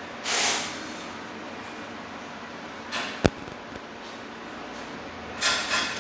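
Tape pulled off a roll in short tearing strips, three times, with a single sharp click about three seconds in, the loudest sound, as pipe pie-cut sections are taped together for an exhaust mock-up.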